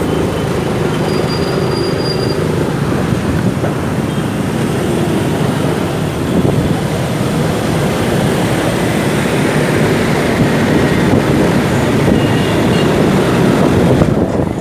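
Motorcycle engine running steadily while riding, a continuous drone mixed with road and traffic noise.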